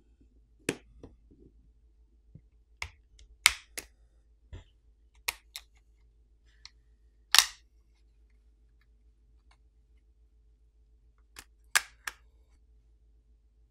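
The plastic catches of a Samsung Galaxy A42 5G's plastic back housing snap loose one after another as a plastic pry pick works around the frame. These are irregular, sharp clicks and snaps, about ten in all, with the loudest about halfway through.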